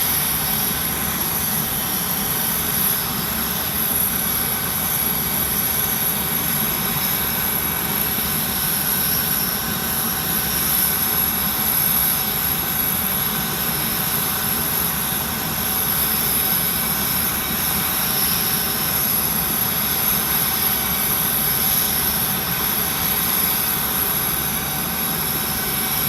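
Aircraft engines running steadily, a constant rushing noise with a steady high-pitched whine that neither rises nor falls.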